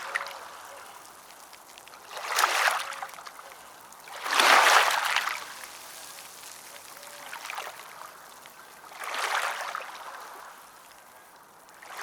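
Small ocean waves washing onto a shore: four swells of rushing water, each building and falling away over about a second, the one about halfway through the loudest, with a softer steady wash between them.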